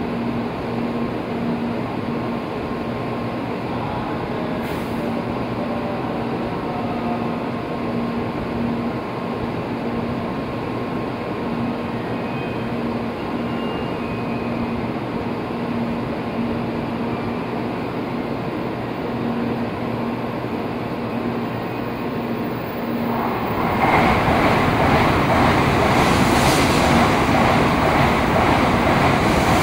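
A steady low hum with a pulsing tone, then, about 23 seconds in, a Shinkansen bullet train passing through the station at speed: a sudden loud, even rush of wheel and air noise that lasts to the end.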